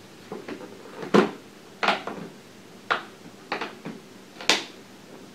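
Plastic screen bezel of a Dell Latitude E7440 laptop being pressed onto the lid, its retaining tabs snapping into place in a series of sharp clicks, about six in all, the loudest about a second in and near the end.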